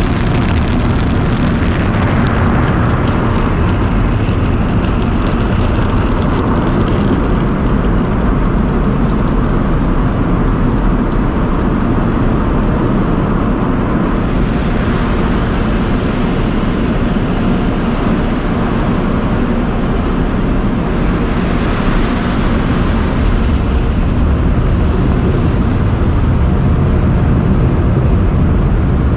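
Automated car wash tunnel equipment running around the car: a loud, steady rushing roar. A higher hiss swells twice, about halfway through and again a few seconds later.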